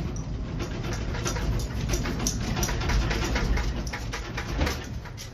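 Deep rumble with continuous rattling and clattering as a house and its contents shake during an earthquake.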